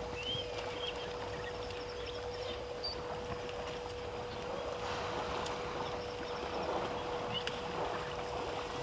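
Water sloshing and splashing as African elephants bathe in a waterhole, growing fuller about halfway through. A few short bird chirps and a steady low hum sit underneath.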